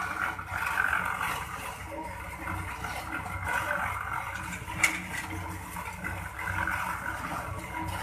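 A heavy machine's engine running steadily, with a single sharp knock about five seconds in.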